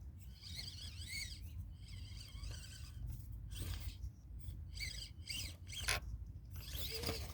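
Axial SCX24 micro crawler's small stock brushed motor and servo whining in short bursts, the high pitch rising and falling with the throttle as it crawls, with a couple of short clicks of the truck against pine twigs.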